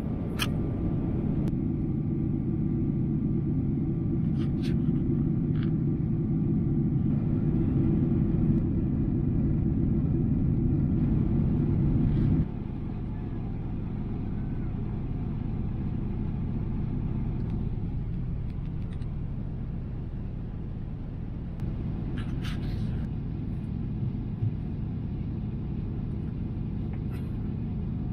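Steady low rumble of a Boeing 777-300ER's cabin in flight: engine and airflow noise heard from a seat behind the wing. About twelve seconds in it drops abruptly to a quieter steady rumble, with a few faint clicks.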